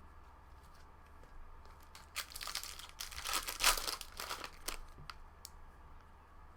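Foil trading-card pack wrapper crinkling and tearing as a pack of baseball cards is handled and opened, for about three seconds in the middle, with a few light ticks of handling around it.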